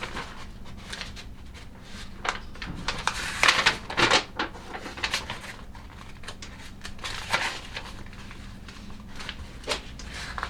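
Irregular paper rustles and light handling clicks as a printed instruction booklet is leafed through, over a steady low hum.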